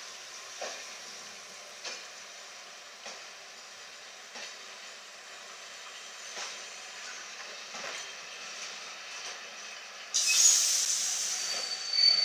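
Vintage Pullman coaches rolling slowly past, their wheels clicking over rail joints a little more than once a second, the clicks spreading out as the train slows. About ten seconds in a sudden loud hiss sets in, followed near the end by a high steady squeal.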